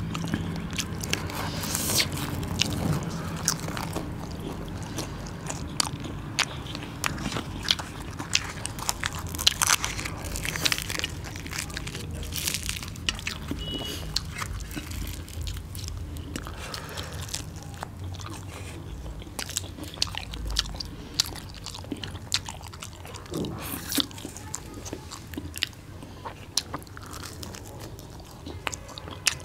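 Two people eating chole bhature: chewing mouthfuls of deep-fried bhatura bread and chickpea curry, with many sharp, irregular mouth clicks and smacks.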